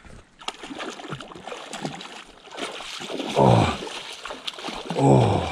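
Water splashing as a hooked pike thrashes at the surface close to the bank, with two louder surges about three and a half and five seconds in.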